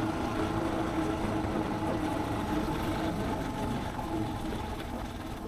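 Suzuki DR650's single-cylinder four-stroke engine running steadily on the move, its level easing a little in the second half.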